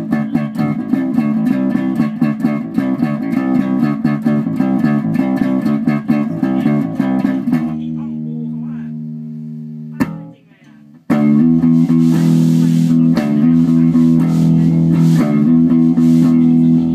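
Rickenbacker 4003 electric bass being played: a quick run of picked notes, then a held note that fades away. After a click and a brief gap about ten seconds in, the playing resumes with longer ringing notes.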